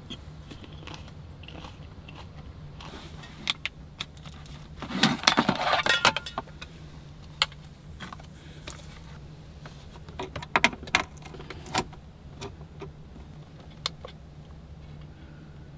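Small hard objects being handled: scattered clicks and clinks, with a dense rustling clatter about five seconds in, over a steady low hum.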